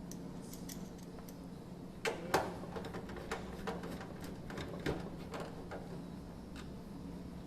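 Screwdriver and screws clicking and tapping against a washing machine's sheet-metal panel as it is screwed back together: a scatter of short light clicks starting about two seconds in, over a steady low hum.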